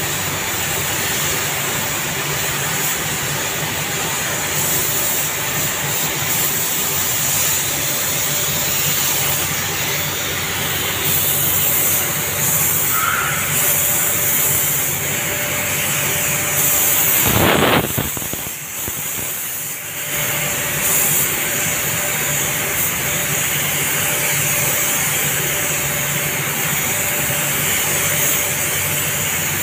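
Compressed-air gravity-feed paint spray gun hissing as it sprays, over a steady low hum. Just after halfway there is a louder rush of air, then the spray stops for about two seconds before it resumes.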